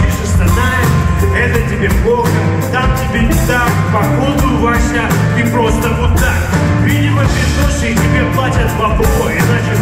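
Live rock band playing: drum kit, guitar and violin, with a male singer at the microphone.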